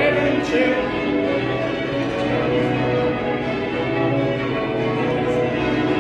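Bath Abbey's tower bells change ringing: a continuous stream of overlapping bell strokes, each bell ringing on into the next.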